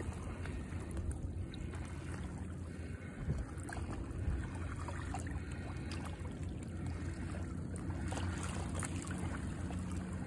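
Shallow seawater sloshing and trickling with small splashes as a gloved hand works in the water, over a steady low hum.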